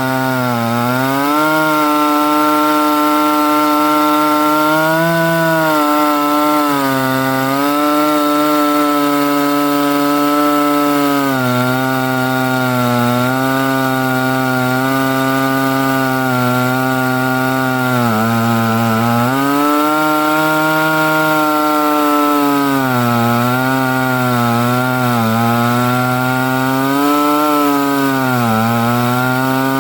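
Chainsaw on an Alaskan chainsaw mill running at high revs under load, ripping lengthwise through a log to cut a slab. The engine pitch sags and picks up again several times as the cut loads it.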